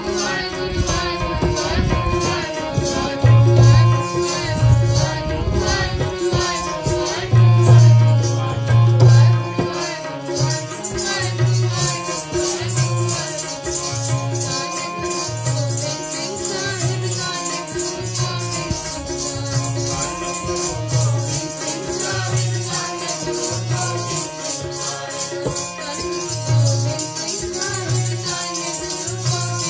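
Sikh kirtan music: harmoniums playing sustained chords over a steady low drum beat, with jingling rattle-like percussion keeping time more densely from about a third of the way in.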